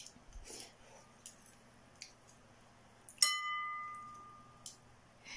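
Faint eating noises and small clicks from a spoon and chopsticks in a bowl of noodle soup. About three seconds in, a utensil clinks sharply against the ceramic bowl, which rings and fades over a second or so.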